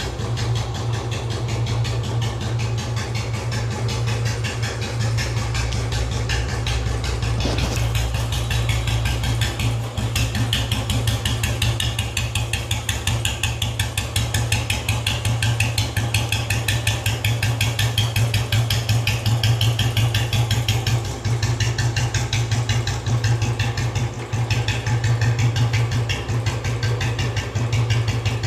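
Royal Enfield Bullet motorcycle's single-cylinder four-stroke engine idling with a steady, even beat.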